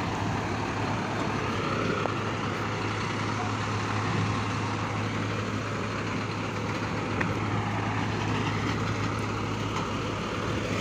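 Iveco Trakker heavy truck's diesel engine running as the truck creeps forward through mud, a steady low hum.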